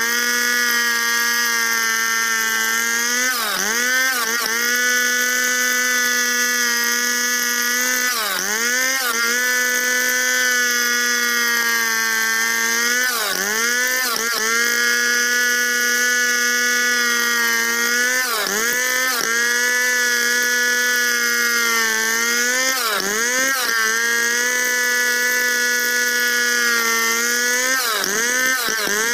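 Stihl two-stroke chainsaw running at high revs while ripping lengthwise through a log in freehand milling. Its pitch dips briefly and recovers about every five seconds.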